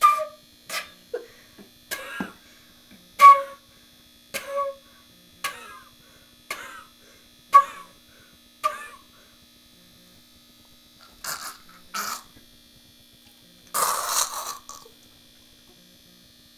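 Beginner blowing short puffs into a concert flute, about one a second, mostly rushing breath with only a brief faint note in some. About fourteen seconds in comes a longer, noisier breathy burst.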